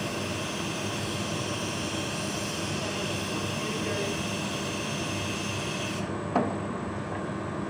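Steady roar of a glass-blowing hot shop's furnace and ventilation, with a hiss that drops away abruptly about six seconds in. A single sharp knock comes soon after, the loudest sound here.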